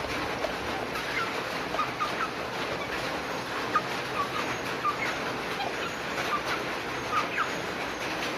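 Steady rain pattering, with many short high blips scattered through it.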